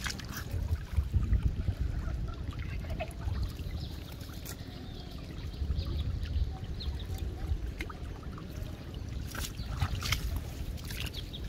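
Shallow rainwater trickling over flooded ground under a low, uneven rumble, with a few sharp clicks near the end.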